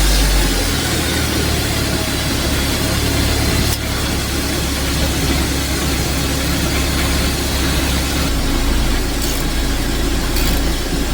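Torpedo heater running: a steady, loud roar of fan and burner over a low hum.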